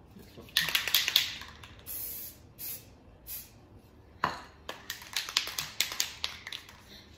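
Aerosol spray-paint cans: the mixing ball rattling in quick clicks as a can is shaken, near the start and again through the second half, with a couple of short hisses of spray about two seconds in.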